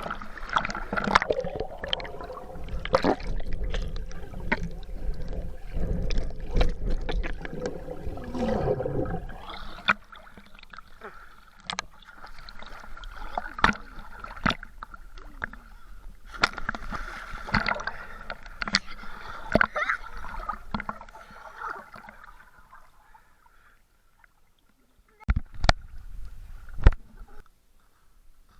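Lake water splashing and sloshing around swimmers, with scattered knocks and faint voices.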